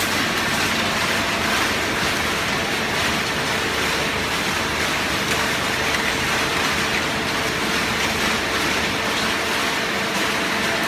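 Open-ended shredded paper baler running: a steady mechanical noise with a constant hum through it.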